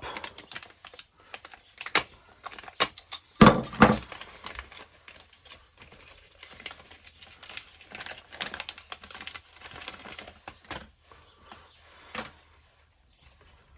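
Handling sounds of opening a packet of new belt sander drive belts and working with the parts: scattered clicks, taps and crinkly rustling, with a loud knock about three and a half seconds in.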